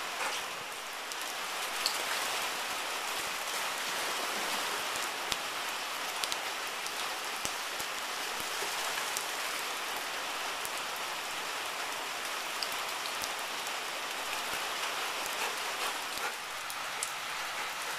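Steady rain falling, an even hiss with a few sharp drop ticks scattered through.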